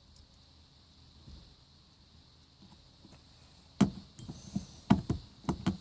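Near silence for nearly four seconds, then several sharp clicks and knocks from Kwikset lock parts and keys being handled during rekeying.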